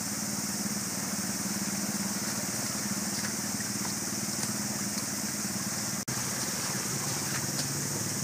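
Adventure motorcycle engine idling steadily while the bike is walked through a shallow rocky stream, with the rush of the stream water around it. The sound breaks off for an instant about six seconds in.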